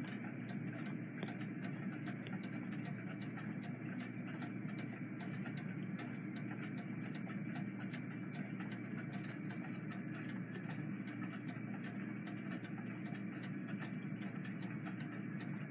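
Faint ticking, several quick ticks a second, over a steady low room hum.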